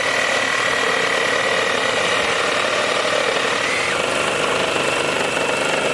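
Two DeWalt reciprocating saws, one of them a brushless compact cordless model, running together and cutting through wood, with a steady, even motor whine. The whine steps up in pitch about four seconds in.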